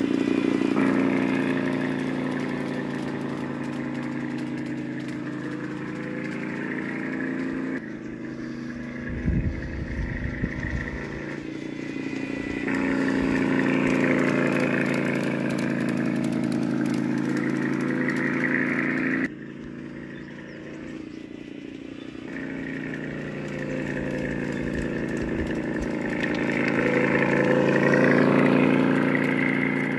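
LGB side-rod diesel model locomotive running with its train, giving a steady engine-like hum with several pitched tones. It swells and fades as the locomotive nears and moves off, loudest near the end.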